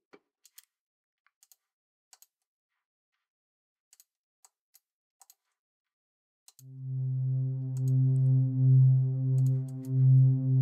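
A few faint clicks, then about six and a half seconds in a steady synthesizer drone starts: a supersaw oscillator in the Drambo app, held on one low note through a low-pass filter, with no amp envelope yet to shape it. Its level wavers slightly.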